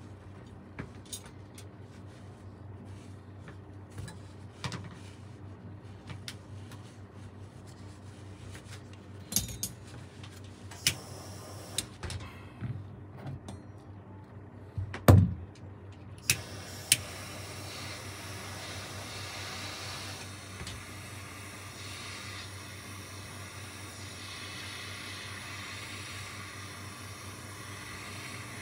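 Scattered clicks and knocks of small metal parts and tools being handled, the loudest about fifteen seconds in. From about seventeen seconds a steady hiss sets in.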